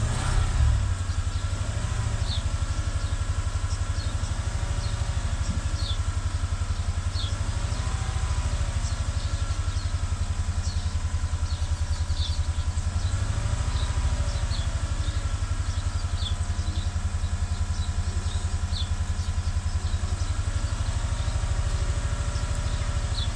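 2015 Chevrolet Tahoe V8 engine running with a steady pulsing beat, its pitch rising slightly twice as the throttle is pressed. The engine has a cylinder 6 misfire caused by a mechanical fault, not an electrical one.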